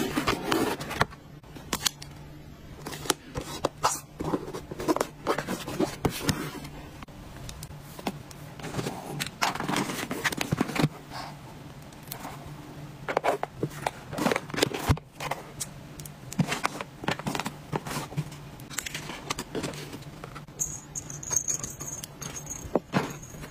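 Twine being wrapped and tied around a cardboard mailer box: irregular rubs, scrapes and light taps of string and fingers on the cardboard.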